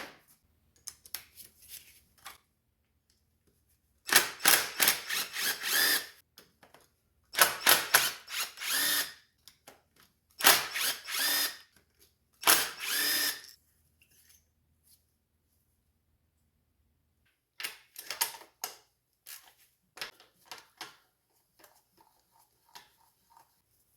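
Handheld power tool run in four short bursts of one to two seconds each, backing out spark plugs from a four-cylinder engine. Lighter clicks and taps of metal parts being handled follow.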